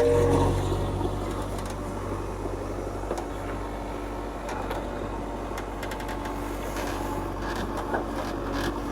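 Heavy diesel engine running steadily, with a few light clicks and knocks over it.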